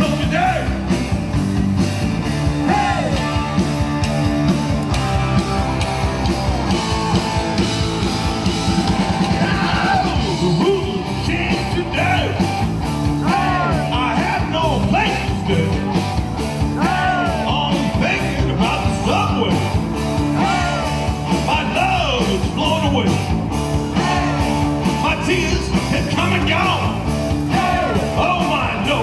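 Live rock and roll band playing with electric guitar, bass and drums, a lead line bending up and down over a steady beat.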